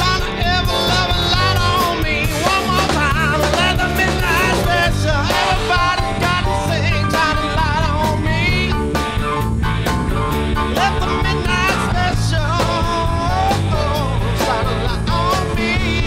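Rock band music: a lead line of bending, wavering notes over a steady bass and drum groove.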